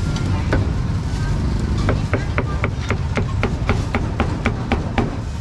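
Meat cleaver chopping glazed roast meat on a wooden chopping block: a quick, even run of chops, about four a second, starting about two seconds in.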